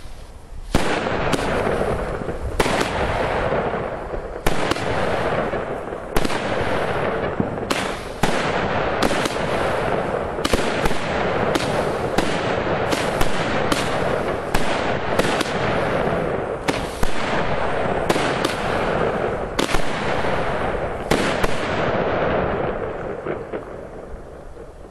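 An 18-shot fan-shaped salute firework battery firing: sharp bangs follow one another in quick succession with no pause between them, then thin out and fade near the end.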